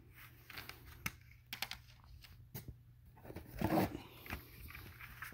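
Plastic CD jewel cases being handled, with scattered light clicks and knocks as the cases are moved and set down. A brief low murmur comes about three and a half seconds in.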